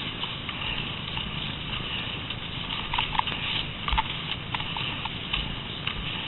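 Cross-country skis gliding and poles planting on packed snow: a steady hiss with irregular light clicks and crunches, more of them in the second half.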